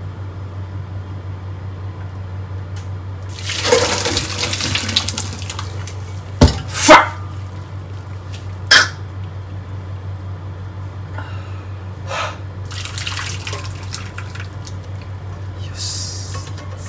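Cooking noises from a stovetop and sink: a few short hissing, water-like rushes and two sharp knocks of pan or utensils, over a steady low hum.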